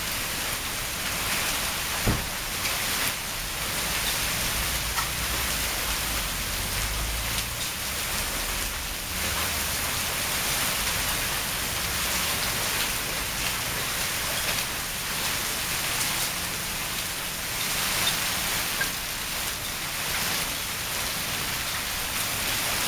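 Heavy rain pouring in a steady hiss during a strong wind and hail storm. There is a sharp knock about two seconds in and a low rumble a little past the middle.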